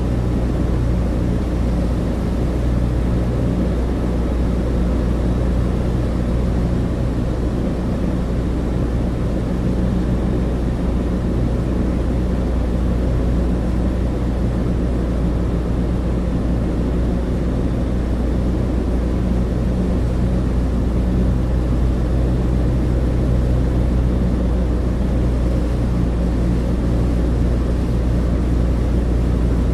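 Inside the cabin of a Douglas DC-3: the twin radial piston engines and propellers make a loud, steady low drone with an even hum that does not change.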